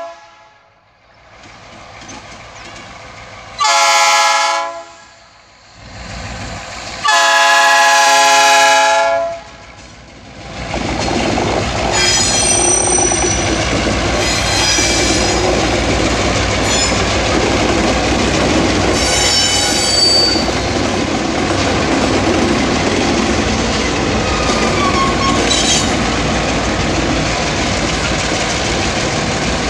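Freight train's EMD G22UB diesel locomotives sounding two horn blasts, the second one longer. The locomotives then pass close by with a steady, loud engine and wheel rumble, with high squeals from the wheels on and off.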